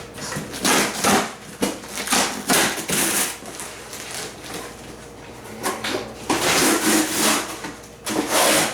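Gift wrap being handled, rustling and crinkling in irregular bursts, the loudest about a second in, around three seconds in, and from about six to seven seconds in.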